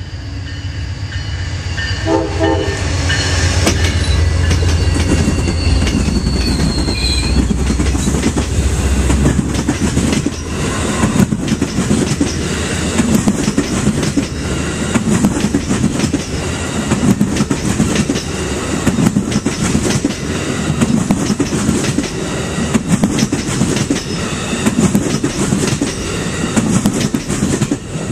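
Amtrak passenger train passing close by. The lead GE Genesis diesel locomotive sounds its multi-note horn at the grade crossing, and the horn stops about seven seconds in as the engine's low rumble goes by. After that, the long string of bi-level Superliner cars rolls past with a rhythmic clickety-clack of wheels over rail joints.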